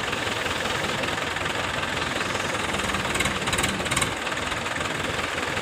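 Diesel engine of the crane or tractor idling steadily with a knocking beat, with a brief rattle about three and a half seconds in.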